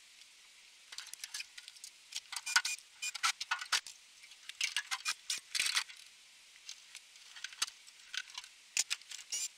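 Metal parts and wiring of a gutted microwave oven clinking and rattling as they are handled and pulled from the chassis: scattered light clicks and clinks in irregular clusters with short pauses between.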